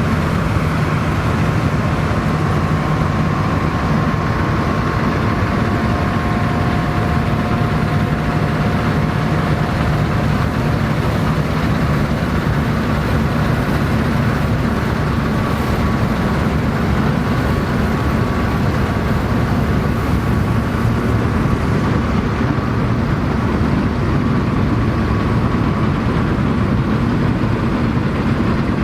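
Vintage Dronningborg D2600 combine harvester running steadily while harvesting barley, engine and threshing machinery working together, with a faint high whine over the steady drone.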